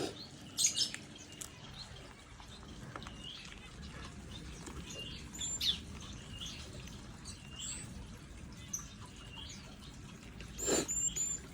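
White-rumped shama calling: short scattered chirps and whistled notes, high-pitched, with a quick run of three short notes near the end. A short burst of noise sounds just before that run.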